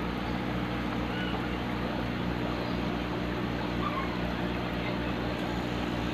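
Aquarium air pump running with a steady low hum, air bubbling from the air stone in the tank.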